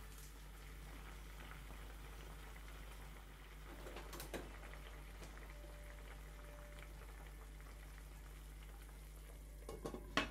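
Stock with potatoes, onion and mushrooms simmering steadily in a deep pan on a gas burner. There are a few small knocks about four seconds in. Just before the end, the lid is set on the pan with a couple of loud clinks.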